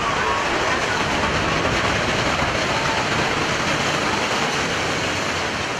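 Steady, dense rushing noise of a landslide, with earth and debris flowing down the slope.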